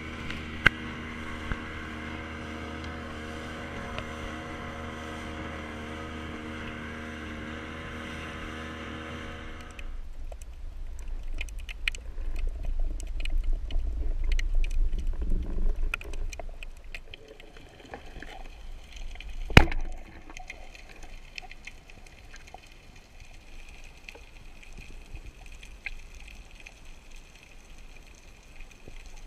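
Underwater sound: a steady motor drone that cuts off about ten seconds in, then low rumbling water noise with scattered clicks and one sharp snap about two-thirds of the way through.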